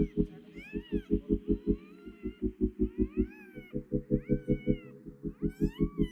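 Newborn puppies crying: thin high squeals that rise and fall, repeated every second or so. Under them runs a rapid low throbbing pulse, about eight beats a second.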